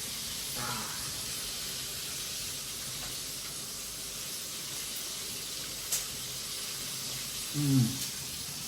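Steady sizzling hiss of chicken frying in hot oil, with a short vocal sound near the end and a small click about six seconds in.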